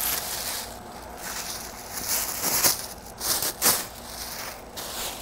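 Plastic bag and paper packing wrap rustling and crinkling as a telescope's optical tube is pulled out of its wrapping, with a few louder crackles around the middle.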